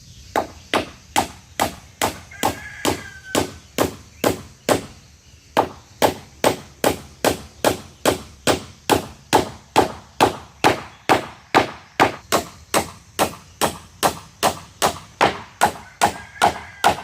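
Rapid, evenly spaced blows of a hand tool on timber, about two and a half a second, with a short break about five seconds in.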